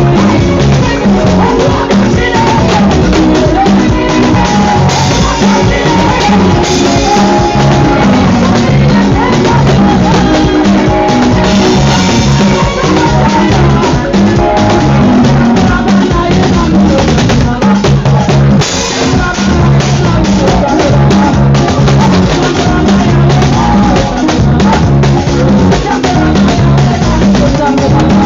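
Loud music with a drum kit and bass beat and a singing voice, dense and steady throughout.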